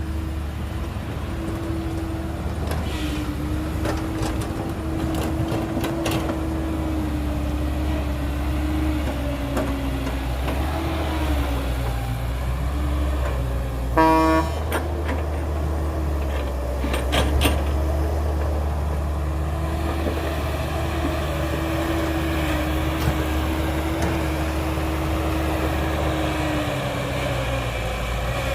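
Heavy diesel engine running steadily, its pitch drifting slightly up and down, with one short horn toot about halfway through.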